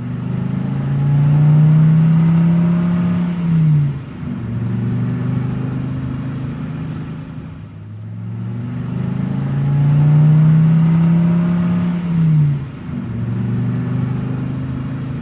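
Motor vehicle engine sound effect: the engine builds up and holds a high note, its pitch drops sharply as at a gear change, then it runs on steadily. The same sequence loops once, starting again about eight or nine seconds in.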